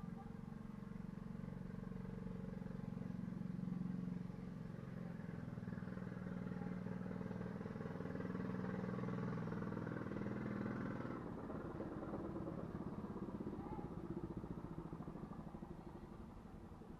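A vehicle engine running steadily, growing louder over the first few seconds and fading away after about eleven seconds.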